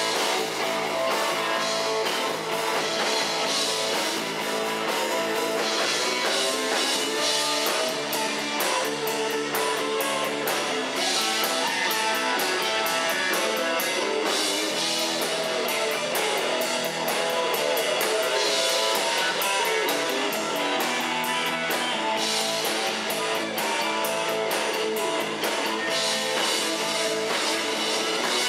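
Live rock band playing: electric guitars and electric bass over a drum kit with busy cymbals, at a steady level.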